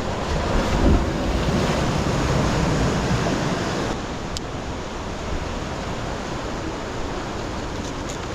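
Ocean surf breaking and washing over the shore rocks, with wind buffeting the microphone. A wave surges up about half a second in and eases off after about four seconds, leaving a steady wash.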